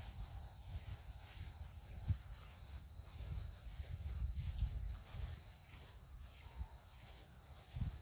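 Soft, irregular low thumps of footsteps on a mown grass path, over a steady high-pitched chorus of late-summer meadow insects.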